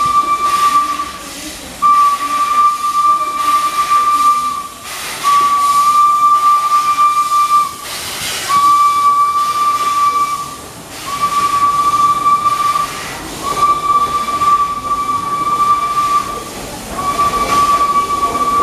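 Steam whistle of the 1855 Kitson, Thompson & Hewitson locomotive EIR 21, blown again and again in long single-pitched blasts of about two seconds with short gaps, about seven in all, over bursts of steam hiss as the locomotive runs past.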